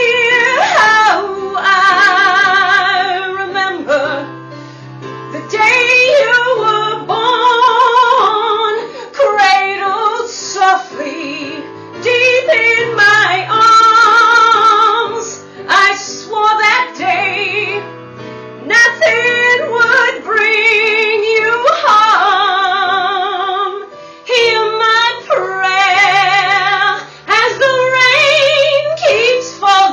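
A woman singing a dramatic solo song with strong vibrato on long held notes, in phrases a few seconds long with short breaths between, over low held accompaniment notes.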